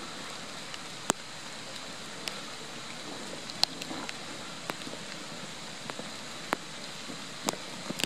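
Steady rain hiss, with single drops ticking sharply and irregularly about once a second.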